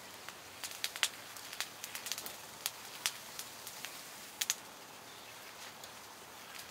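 Scattered sharp, faint clicks and crackles at irregular intervals, two of them close together about four and a half seconds in, over a quiet outdoor background.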